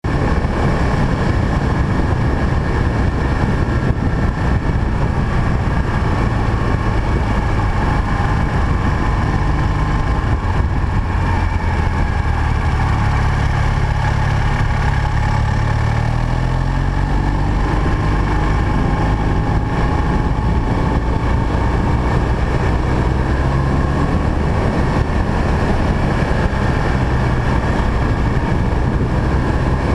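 BMW R1200 GS flat-twin (boxer) engine running under way, heard from a camera mounted on the bike, over a steady rush of wind. About halfway through, the engine pitch climbs as the bike accelerates.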